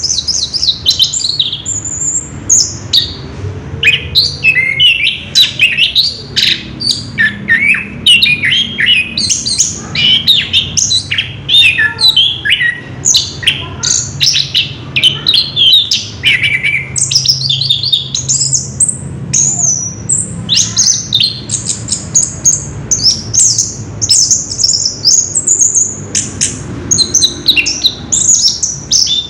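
Orange-headed thrush singing a long, unbroken run of rapid, varied high notes, the continuous rolling song that bird keepers call ngerol.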